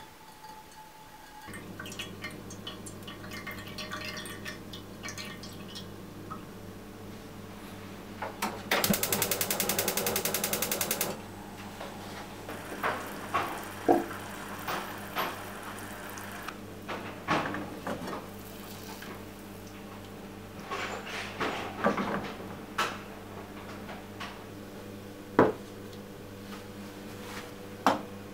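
Braising liquid trickling through a mesh strainer into a saucepan, then a gas stove's igniter clicking rapidly for about two seconds as the burner is lit. After that the sauce boils hard on high heat, with bubbles popping and spitting at irregular moments as it reduces.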